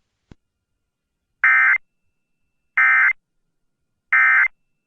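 Emergency Alert System end-of-message tones: three short bursts of SAME digital data, each about a third of a second long and about 1.3 s apart, signalling that the alert message is over.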